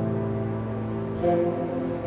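Background music: a held chord, with new notes coming in a little after a second in.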